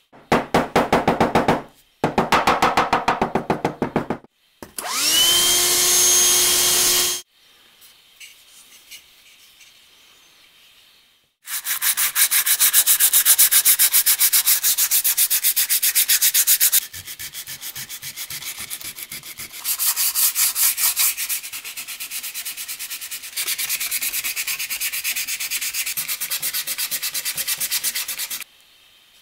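Sandpaper rubbed by hand over a wooden saw handle in fast back-and-forth strokes, in several long runs. Near the start there are two short runs of rapid scraping and a brief machine whine that rises to a steady pitch and stops.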